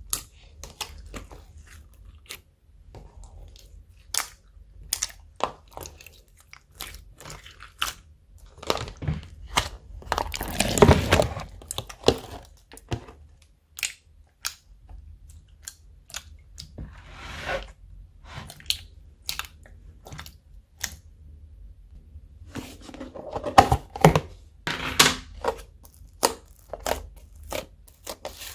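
Slime being squished, folded and stretched by hand: an irregular run of sharp clicks and pops, with a few longer crunchy stretches, the loudest about ten seconds in.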